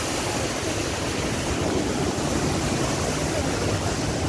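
Water pouring down a dam spillway: a steady, even rush of falling water.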